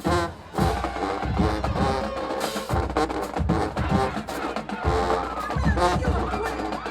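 High school marching band playing: brass over heavy drums and low bass hits, starting abruptly at full volume.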